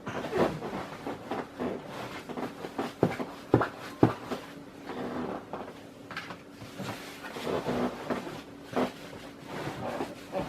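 Scattered knocks, taps and rustles of objects being handled close by, with two sharper knocks about three and a half and four seconds in.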